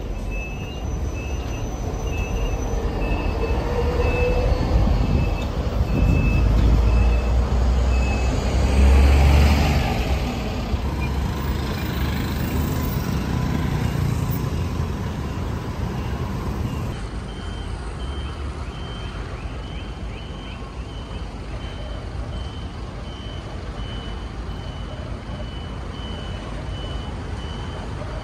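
Repeated electronic warning beeps, about one and a half a second, over street traffic rumble; a vehicle rumbles loudly close by about nine seconds in. After a cut the beeping carries on at a slightly higher pitch over steady traffic noise.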